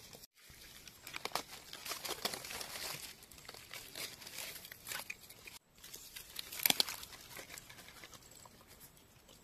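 Crinkly rustling and crackling of dry forest leaf litter being handled while wild mushrooms are picked, with a sharper crackle about two-thirds of the way through.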